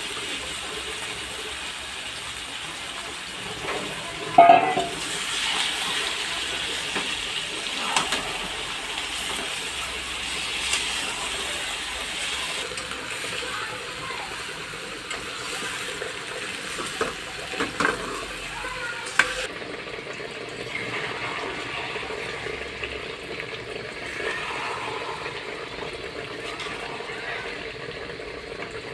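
Kitchen cooking sounds: a steady hiss of water or food in a pan, with occasional sharp knocks of a utensil against a metal pot, the loudest about four and a half seconds in.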